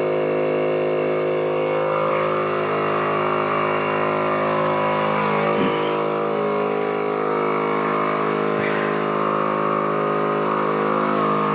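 A motor running steadily at one constant pitch, with a few faint knocks about halfway through and near the end.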